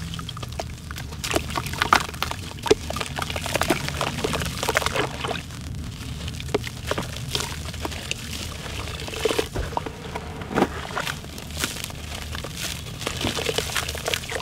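Hands crushing and squeezing a soaked charcoal chunk in a plastic basin of water: irregular wet crackling and squelching as it breaks up, with the gritty slurry pouring and splashing back into the water.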